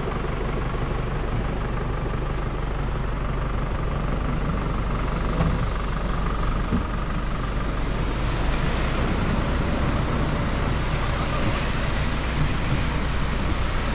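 A farm tractor's engine runs steadily close by, a constant low drone with no rise or fall, over a steady wash of noise.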